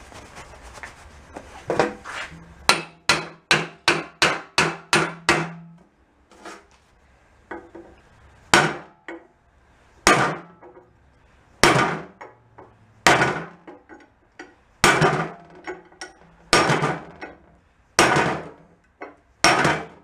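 Hammer striking a steel punch to drive a stuck pin out of the pivot eye of a backhoe thumb, metal on metal. It starts with a quick run of about ten lighter taps, then goes on to heavier single blows about every second and a half.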